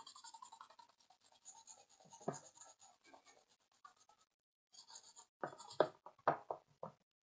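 Toothbrush bristles scrubbing a corroded printed circuit board, a memory expansion card, in a shallow tub of water to clear battery corrosion: a soft, scratchy brushing. About five and a half seconds in come a few louder short scrapes and knocks as the board and brush are handled.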